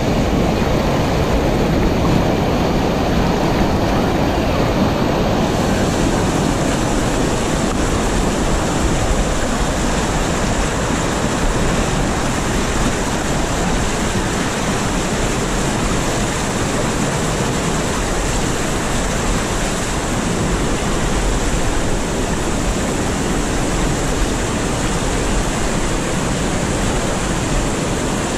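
River whitewater rushing over a sloping rock shoal close to the microphone: a loud, steady, unbroken rush of water.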